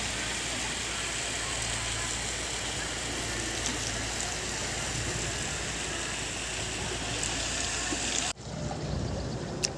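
Steady rushing of flowing floodwater, cutting out abruptly about eight seconds in.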